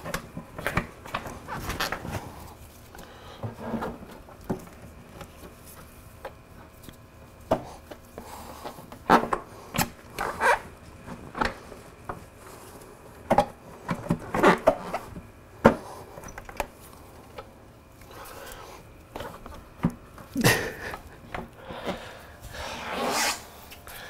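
Irregular metallic clicks, knocks and scrapes of parts being handled at a motorcycle's rear axle while the rear wheel is refitted, with a cluster of sharper knocks about halfway through.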